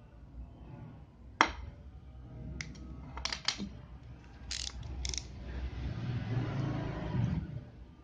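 Small hand tools on a washing-machine run capacitor's terminal and wire: a series of sharp metallic clicks, the loudest about a second and a half in, then about two seconds of scraping that stops near the end, as the terminal is cleaned for soldering.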